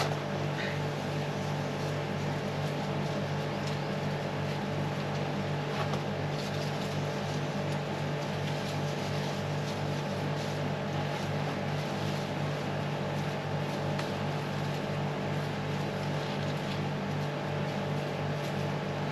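Steady mechanical hum of a motor running at a constant speed, holding several fixed tones, with a few faint light taps from handling.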